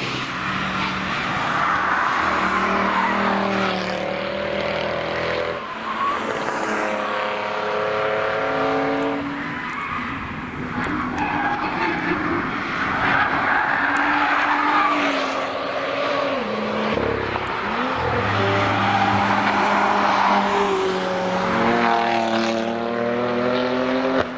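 High-performance cars, among them a Mercedes-Benz C63 AMG and a BMW M2, passing one after another through a racetrack corner. Their engines rev up with rising pitch as they accelerate, over steady road and exhaust noise.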